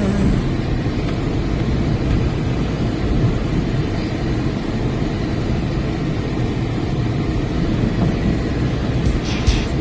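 4x4 driving over a rough, rocky dirt trail, heard from inside the cabin: a steady low rumble of engine, tyres and suspension. A rhythmic beat of music starts near the end.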